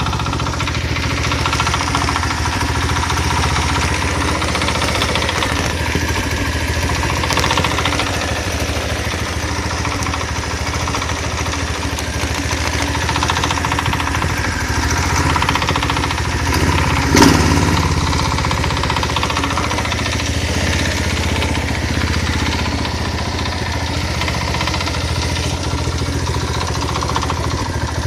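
Small carburetted engine idling without load, with a knock in its running that the owner suspects comes from crankshaft bearings that have developed play. There is one brief louder clunk about seventeen seconds in.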